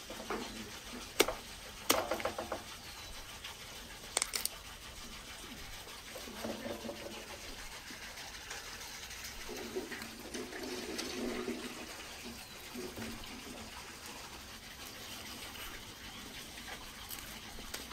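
Outdoor ambience: a steady water-like rush, with a few sharp clicks or knocks in the first few seconds and several short pitched calls scattered through.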